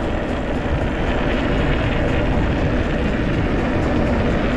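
Steady rush of wind on the microphone mixed with the tyre noise of a mountain bike riding along a dirt trail.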